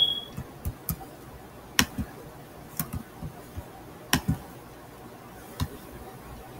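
A high beep cutting off at the very start, then a scattering of sharp computer mouse clicks, four of them louder than the rest.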